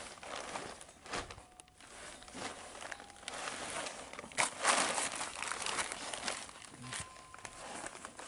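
Irregular rustling, crinkling and scraping handling noises from work under a truck while its front-end grease fittings are being serviced with a grease gun, with a louder burst about halfway through.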